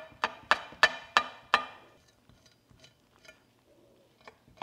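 Chef's knife cutting through raw squid and knocking on a wooden cutting board: about six quick, sharp knocks in the first second and a half, then fainter, sparser taps, with the knocks picking up again near the end.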